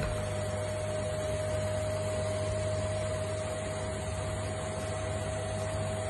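Indesit washing machine running with a steady hum and a constant tone above it, with no squeaking now that new drum shock absorbers are fitted.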